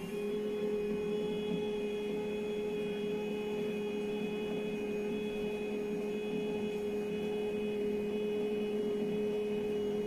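TBK 958A laser marking machine's drive motor whining steadily as the machine measures and sets its focus by itself.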